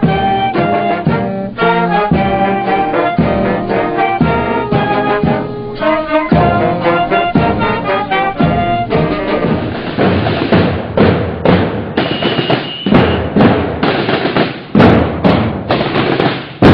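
Band music with brass instruments and drums. About nine seconds in it changes to a noisier passage led by drum strokes.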